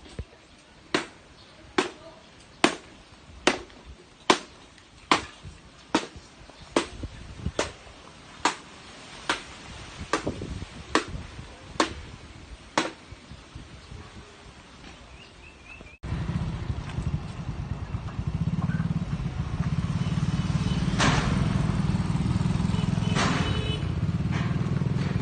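A series of about fourteen sharp, evenly spaced blows, a little more than one a second, like a hammer at work in building repairs. They die out partway through. Later a steady engine-like rumble starts abruptly.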